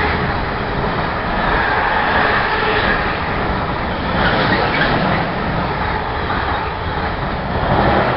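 Container freight train's loaded wagons rolling past at close range: a steady, even noise of steel wheels running on the rails.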